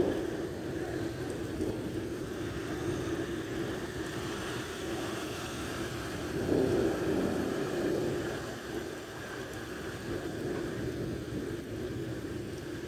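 Cars driving through a flooded street, tyres swishing through standing water, louder as one passes at the start and again about seven seconds in, over a steady hiss of rain.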